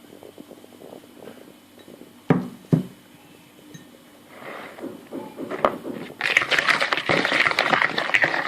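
Utensil against a mixing bowl while lemon batter is prepared: two sharp knocks about two seconds in, then rapid scraping and clinking of stirring in the bowl from about six seconds in.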